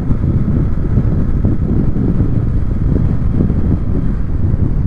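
Wind buffeting the helmet camera's microphone while riding a motorcycle: a steady, loud low rumble of wind over the running engine.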